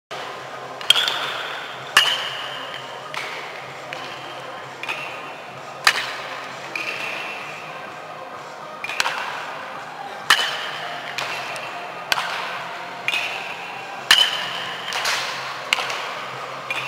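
Metal baseball bats hitting balls: a string of sharp pings, roughly one a second, many with a high ringing tone, echoing in a large indoor batting facility.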